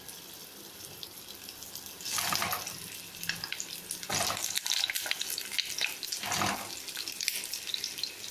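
Pointed gourds (potol) sizzling in hot oil, with a steady crackling hiss. The sizzle flares up three times, about two, four and six seconds in, as each gourd is laid into the oil.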